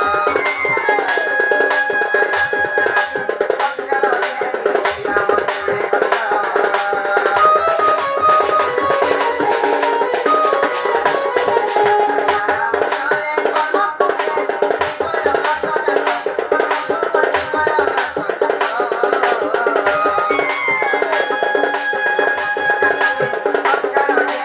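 Sambalpuri folk band music: rapid, dense drumming under a high melody line, which plays a phrase near the start and repeats it about twenty seconds later.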